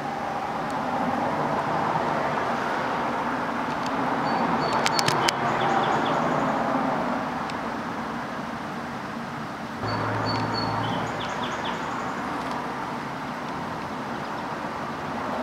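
Steady mechanical background hum, with a few short high chirps and clicks about five seconds in and again about ten seconds in.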